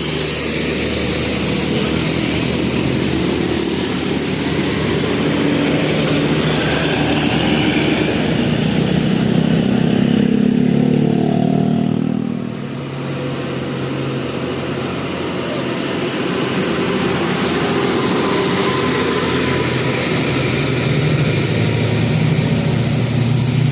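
Heavy road traffic, buses' diesel engines running as they pass, loudest about ten seconds in and again near the end.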